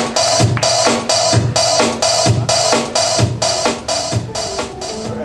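Drum kit playing a steady beat: a sharp snare or rim hit about twice a second with a bass drum on every other hit, getting quieter near the end.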